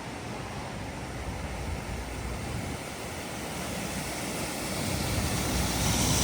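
A vehicle approaching, its noise growing steadily louder over a constant rush of water.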